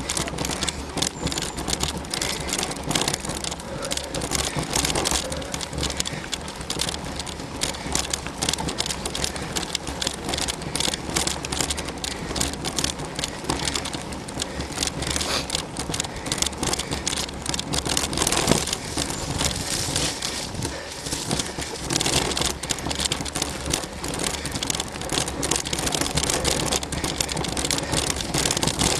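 Mountain bike being ridden along a dry woodland trail, recorded from a camera the rider carries. Tyres give a constant noisy rush on the dirt, with dense crackling and rattling as the bike runs over bumps and debris.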